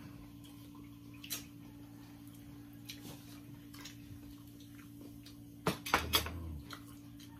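Light clicks and clinks of tableware handled at a meal, with a steady low hum underneath. A single click comes about a second in, and a louder cluster of sharp clinks with a dull thump comes near the end.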